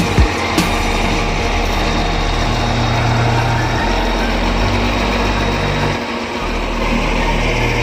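Caterpillar crawler bulldozer's diesel engine running steadily, briefly quieter about six seconds in, with a couple of short knocks near the start.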